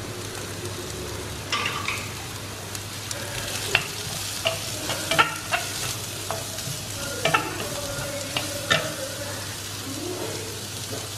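Diced carrot and onion sizzling in hot oil in a kadai, sautéing, while a wooden spatula stirs them with scattered sharp knocks and scrapes against the pan.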